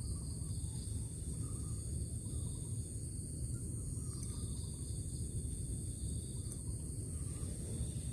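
Insects droning as several steady, unbroken high tones, over a louder low rumbling noise.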